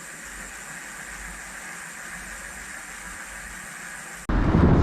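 Steady, even hiss, cut off abruptly about four seconds in by loud low rumbling street sound.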